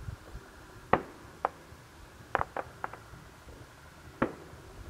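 Aerial firework shells bursting far off, heard as about six sharp, separate bangs: one about a second in, another soon after, a quick run of three in the middle, and a last strong one near the end.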